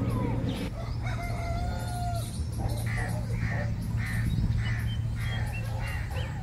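Birds calling: a few short whistled notes, then a run of about six harsh calls at roughly two a second. A steady low hum runs underneath.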